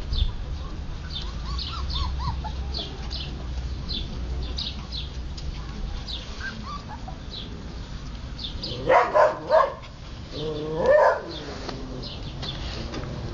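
Husky puppies barking in play: three quick high yips about nine seconds in, then a longer drawn-out bark a second later.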